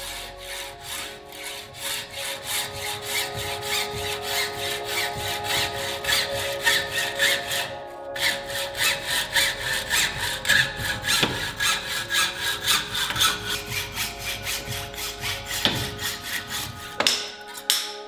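Hacksaw cutting through a carbon bicycle fork steerer tube held in a saw guide, in quick, even back-and-forth rasping strokes. The sawing pauses briefly about eight seconds in and stops with a knock near the end.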